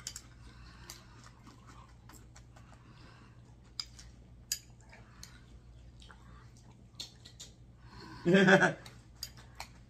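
Crunchy breakfast cereal being chewed, with scattered small crisp clicks and crackles. A brief voiced sound stands out about eight seconds in.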